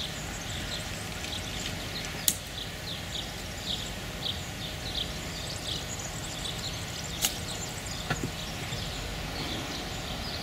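Small birds chirping over and over in the background. Two sharp clicks cut through: one about two seconds in, and an iron striking a golf ball for a chip shot out from under the trees about seven seconds in.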